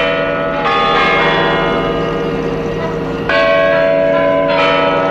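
Church bells ringing: a few fresh strikes, each leaving a long ringing tone that overlaps the next.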